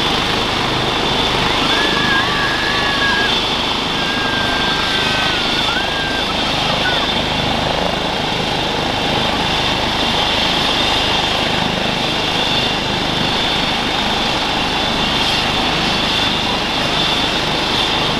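Airbus EC135 T2+ helicopter on the ground with its twin turboshaft engines running and main rotor turning: a steady high turbine whine over the rotor's continuous noise.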